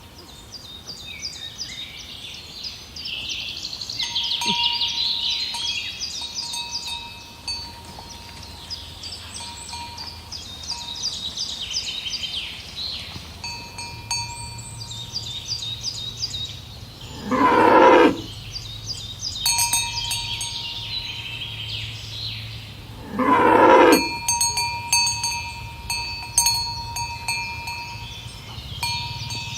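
Bells on walking cattle clinking and ringing without a break, with two loud cow moos of about a second each, some six seconds apart in the second half.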